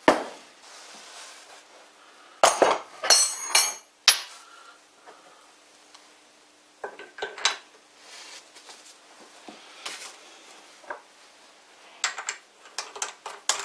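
Heavy steel parts being handled and set down on a lathe's top slide: sharp metal clanks and clinks, some of them ringing. They come in a loud cluster about two and a half to four seconds in, a few more around seven seconds, and another cluster near the end as a steel strap clamp is laid over the block.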